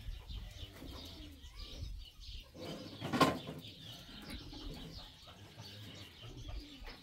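Birds calling, with repeated chirps and cooing, over a low steady hum. There is one sudden loud noise about three seconds in.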